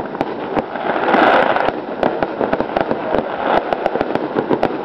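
Fireworks display: shells bursting overhead in a rapid, continuous run of sharp bangs and crackles.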